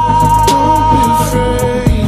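A song with a long held note over drum hits and a deep bass line.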